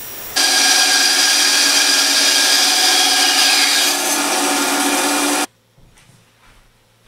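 Grizzly G0803 9-inch benchtop band saw running and cutting wood, a steady pitched machine sound that starts suddenly just after the start and cuts off abruptly about five and a half seconds in.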